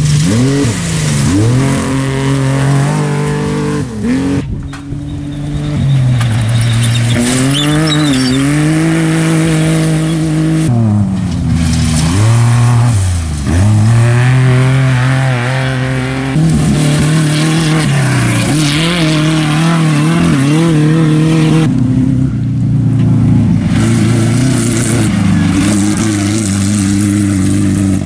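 Off-road race vehicle engines running hard, their pitch swinging up and down with throttle and gear changes. The sound changes abruptly every five or six seconds as one vehicle's engine gives way to another's.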